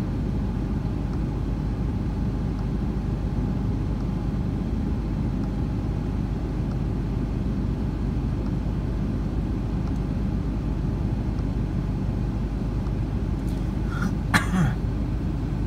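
Ram pickup's diesel engine idling, a steady low rumble heard inside the cab. A short sharp noise comes near the end.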